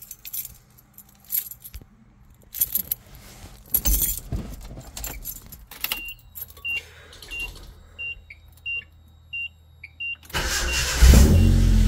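Keys rattling and clicking at the ignition of a 1995 Nissan Hardbody pickup, then a row of short, high warning-chime beeps. About ten seconds in the starter cranks briefly and the engine catches and runs loudly through its long-tube headers and glasspack exhaust.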